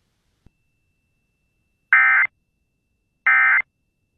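Emergency Alert System end-of-message (EOM) code: short bursts of the SAME digital data tone, the first about two seconds in and the second about a second and a half later, each under half a second long. A faint click about half a second in.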